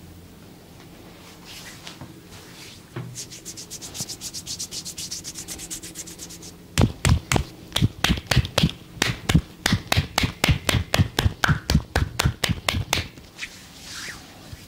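Massage strokes by hand on a body. First a quick run of fine scratching strokes, then firm rhythmic slaps or chops at about four to five a second for some six seconds, stopping about a second before the end.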